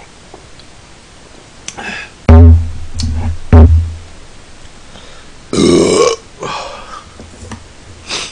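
A man burping loudly several times after a drink from a bottle: two big, deep burps a little over a second apart, then a longer drawn-out one.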